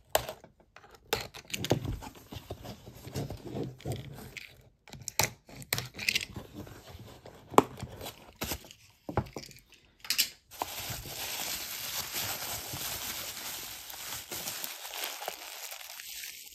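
Packaging being crinkled and torn as a wrapped piece is opened, with scattered small clicks and knocks. About ten seconds in, the crackling turns into a steady rustle that runs on.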